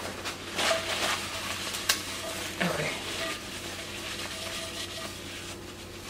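A towel wiping burnt butter out of a stainless steel frying pan: irregular rubbing and scraping against the metal, with a sharp clink about two seconds in.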